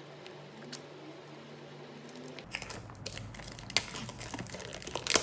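Clear plastic shrink wrap being peeled and torn off a small cardboard product box: near-quiet at first, then from about halfway in a steady run of crinkling and crackling with a few sharp loud crackles.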